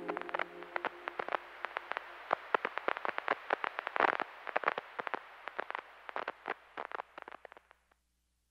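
Record-style crackle: quiet, irregular clicks and pops over a faint hiss that thin out and stop about eight seconds in.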